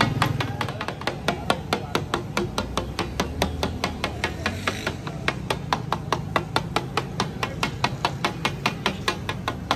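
Metal scraper spatulas clacking rapidly against a huge flat tawa griddle as daal is chopped and mixed on it, a fast, even rhythm of about five strikes a second. A low steady rumble runs underneath.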